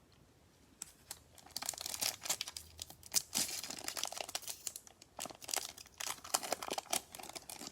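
Wrapper of a Bowman baseball card pack being torn open and crinkled by hand. It starts about a second in and goes on in uneven crackling spells.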